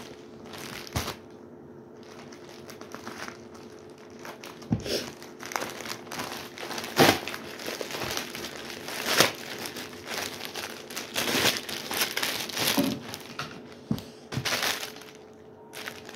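Plastic courier bag and a garment's clear plastic packet crinkling and rustling as they are handled and opened, with several louder sharp crackles among the rustling.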